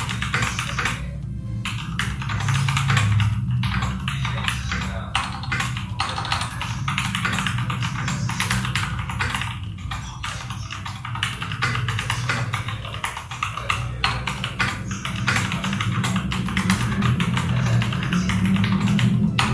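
Continuous typing on an iKBC C104 mechanical keyboard with Cherry MX Red linear switches and PBT keycaps, a quick run of key strokes several a second, heard over background music.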